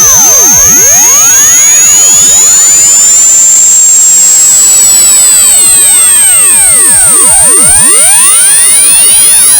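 Loud electronic audio test signal: a high, piercing tone climbing slowly in pitch, with many fainter tones sweeping up and down across the whole range beneath it.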